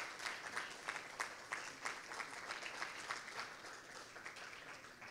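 Audience applauding, scattered claps that thin out and die away near the end.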